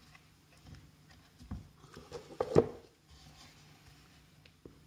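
Scattered light clicks and knocks from hands working a recoil starter housing and its new rope, with a louder knock about two and a half seconds in.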